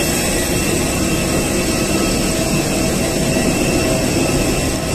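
Jet aircraft turbine running steadily on the apron: a loud constant rush of noise with steady high whining tones.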